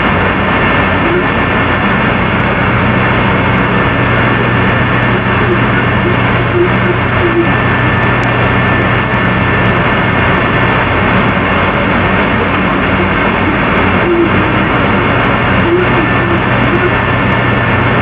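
Steady, loud droning noise with a low hum running under it and a thin steady tone higher up. A few faint, brief tones come and go around the middle of the range.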